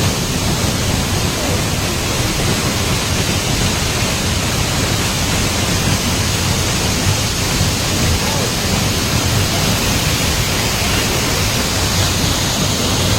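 Waterfall: a loud, steady, even rush of falling water with no change.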